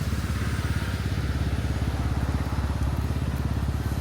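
A low, steady engine-like rumble with a fast, even pulse, cutting off abruptly near the end.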